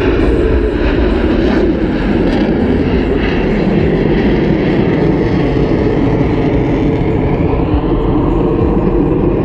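Blue Angels F/A-18 Hornet jets flying overhead: a loud, steady jet engine noise.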